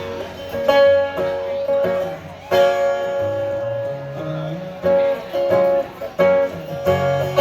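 Live acoustic guitar playing an instrumental passage: strummed chords struck about once a second and left to ring.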